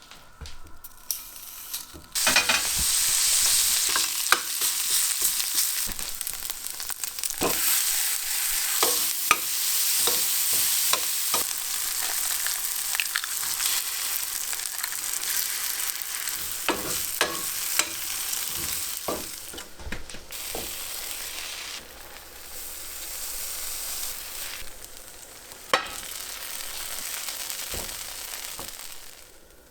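Food frying in a hot pan, the sizzle starting suddenly about two seconds in as it hits the pan, with a utensil scraping and tapping as it is stirred.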